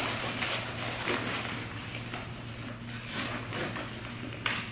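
Rustling and small clicks of stroller fabric and plastic fittings being handled while a cover is fitted and strapped on, with one sharper click near the end, over a low steady hum.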